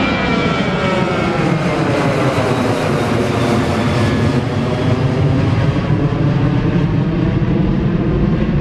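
Jet airliner engines heard loud and steady as the aircraft passes, the tones sweeping down and then back up.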